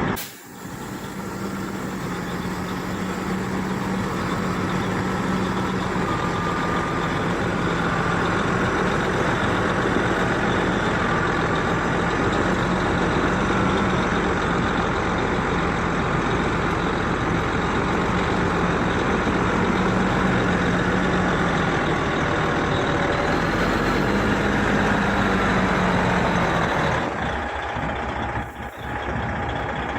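Heavy diesel earthmoving machinery running steadily, with a low, even engine hum.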